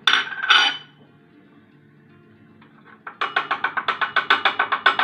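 Kitchen utensils knocking while grated onion is strained over honey: two sharp knocks at the start, then, after a pause, a rapid run of taps, about nine a second, in the last two seconds.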